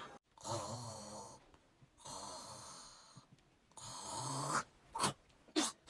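A person snoring heavily: three long snores of about a second each, with a low rasp under a breathy hiss.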